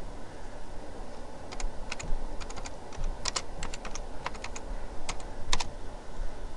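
Computer keyboard keys clicking as a short search phrase is typed: an uneven run of quick keystrokes that starts about a second and a half in and stops shortly before the end.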